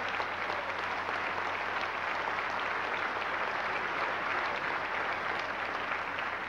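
Large banquet audience applauding steadily, a dense patter of many hands clapping.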